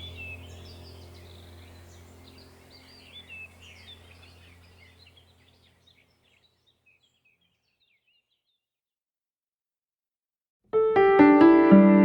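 Birds chirping over a low steady hum, fading out about halfway through, followed by a few seconds of silence. Near the end, loud music with piano and brass begins abruptly.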